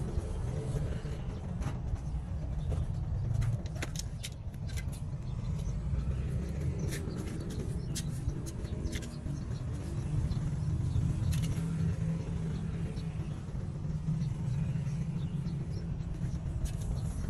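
A steady low rumble with scattered light clicks and scrapes of hands working loose soil in a metal basin.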